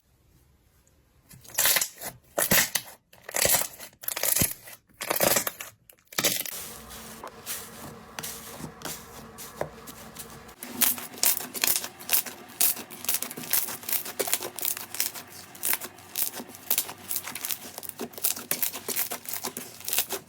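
Slime being squished and pressed: a few separate crunchy crackles, then from about six seconds in a dense run of quick crackling pops.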